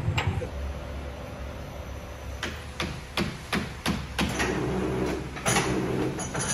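Band sawmill machinery with a steady low hum, then a quick run of sharp knocks, about three a second, starting about two and a half seconds in, followed by louder rattling noise.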